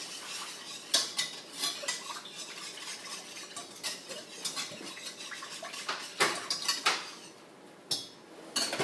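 A utensil stirring sauce in a pot, knocking and clinking against the pot's sides in irregular strokes. The stirring thins out near the end to a couple of last knocks.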